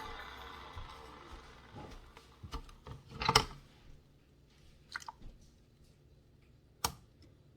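Omega masticating juicer's motor hum dying away just after it is switched off, followed by a few scattered clicks and knocks, the loudest about three seconds in, as juicer parts or the juice container are handled.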